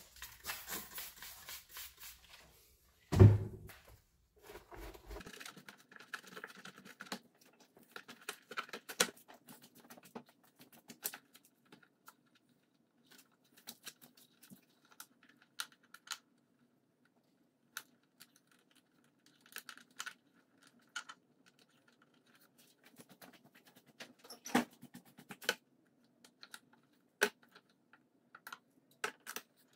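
Hands working at a dirt bike's wiring harness under the seat: a brief wiping rustle, a single knock about three seconds in, then scattered light clicks and taps from handling zip ties and tape.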